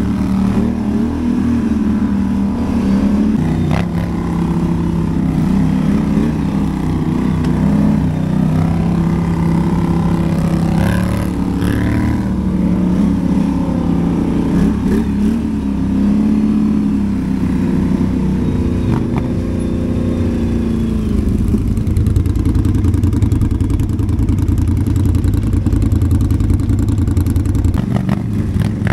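ATV engine running, its pitch rising and falling with the throttle, with a few knocks and rattles.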